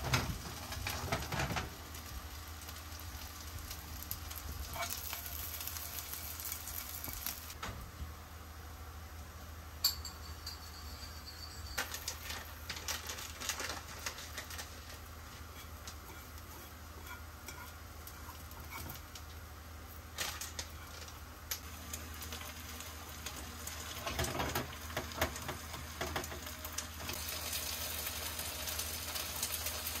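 Food sizzling in a frying pan, with utensils now and then clicking and scraping against the pan and dishes.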